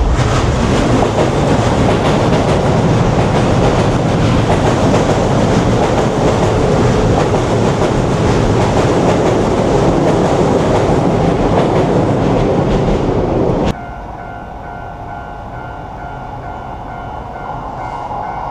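A train passing close by at a rail crossing: loud, steady running noise of wheels on rails. About 14 seconds in it drops off suddenly to a much quieter background with a few steady tones.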